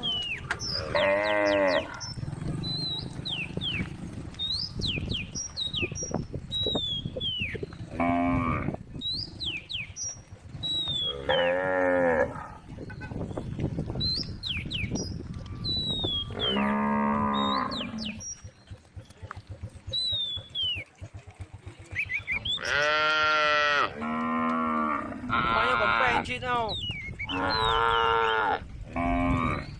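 Cows mooing, about nine long calls that come closer together over the last several seconds, with small birds chirping throughout.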